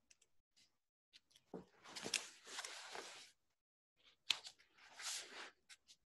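Pages or sheets of paper rustling as they are leafed through, in two spells of a second or so each, with small clicks and taps between.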